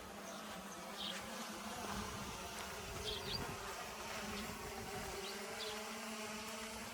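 An insect buzzing: a steady low hum with overtones, with a few short, high chirps over it.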